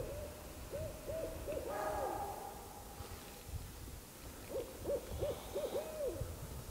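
An owl hooting in the forest: two series of short hoots on one pitch, about five in each, the second series starting about four and a half seconds in.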